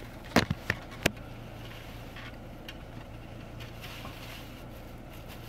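A handheld phone camera being handled and set in place: four sharp knocks and taps in the first second or so. Under them, the steady low hum of a car cabin.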